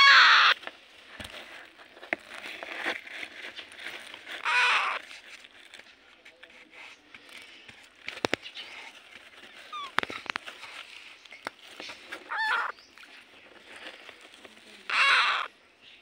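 Baby parakeet chicks calling. There are four loud calls of about half a second each, one at the start and the others spread through, with softer chirps and clicks between them.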